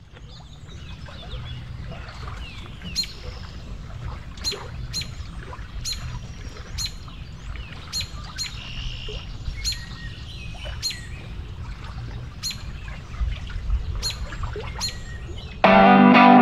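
Birds calling outdoors: short, sharp, high chirps repeated about once a second over a steady low rumble. Loud distorted electric-guitar music cuts in near the end.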